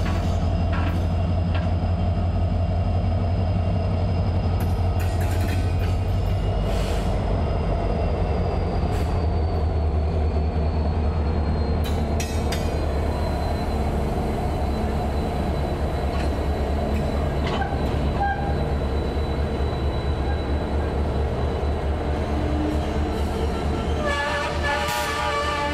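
Norfolk Southern SD60E diesel-electric locomotive, with its 16-cylinder EMD 710 engine, passing slowly at close range with a second locomotive, giving a steady deep engine rumble. Near the end a train horn starts to sound, several tones together.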